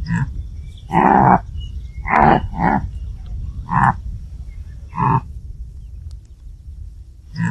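Springbok herd calling: about seven short calls, a few spaced by a second or more and two in quick succession about two seconds in, over a steady low rumble.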